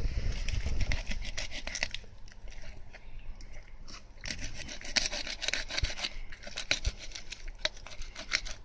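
Kitchen knife cutting along the backbone of a black sea bream on a wooden cutting board: a run of rasping, scraping strokes as the blade works through scale and bone, busier in the second half, with a low rumble at the start.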